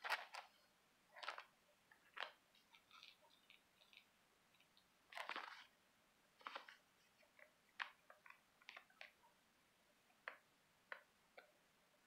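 A kitten licking and grooming its fur: quiet, irregular soft clicks and rustles, the loudest right at the start and a longer rustle about five seconds in.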